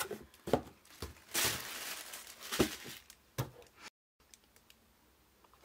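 Tissue paper crinkling and rustling as it is laid over the contents of a cardboard box, with a few light knocks as items are handled and set down.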